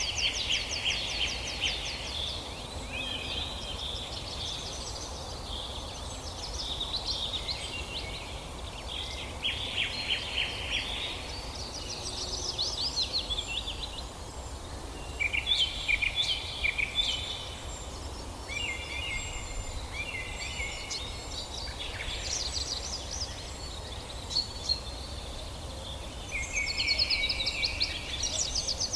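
Several songbirds singing in a forest, overlapping phrases of fast repeated chirps and trills, with a steady low background rumble.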